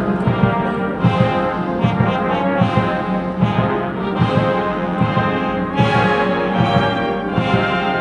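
Military brass band playing a slow funeral march: held brass chords over steady low drum beats.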